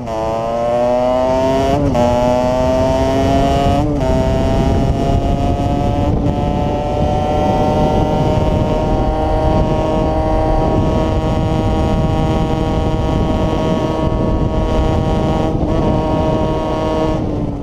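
Small motorcycle engine accelerating hard through the gears. Its pitch climbs, then drops briefly at quick upshifts about two, four and six seconds in, before holding a near-steady, slowly rising note at speed. Wind rush on the helmet microphone runs underneath.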